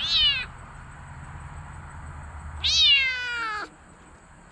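Mink Bengal kitten meowing twice: a short meow at the start, then a longer one of about a second partway through, both high and falling in pitch.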